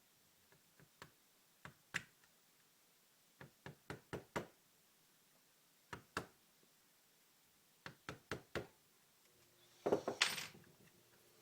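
Light taps on a part of an FNP40 pistol frame, from a small hammer or tool, coming singly and in quick runs of two to five, then a louder, longer clatter near the end.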